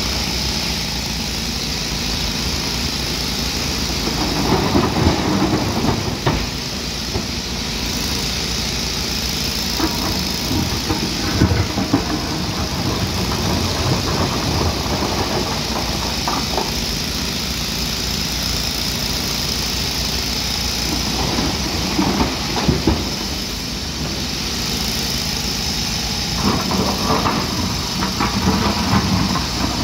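Hyundai 215 excavator's diesel engine running steadily, with louder bursts of clatter and rumble every few seconds as its bucket digs and dumps material into a dump truck.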